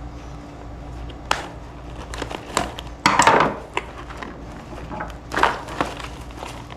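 A carburetor rebuild kit's cardboard box being opened and its parts handled: scattered light clicks and taps with two short bursts of rustling and crinkling, about three seconds in and again near the end.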